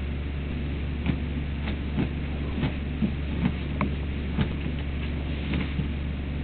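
Doberman puppy digging and scratching at a blanket on a couch: irregular short scrapes and scuffs, about one or two a second, over a steady low hum.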